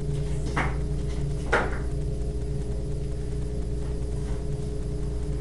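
Steady low hum with a few fixed tones in it, and two brief rustles, one about half a second in and one about a second and a half in.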